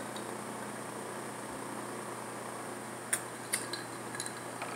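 Steady hiss of a small electric desk fan, with a few light clicks in the second half.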